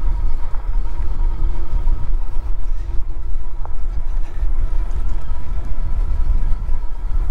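A fat-tyre e-bike's Bafang mid-drive geared motor whines steadily under pedal assist while riding a dirt trail. A strong low rumble of wind on the microphone and tyres on the ground lies over the whine.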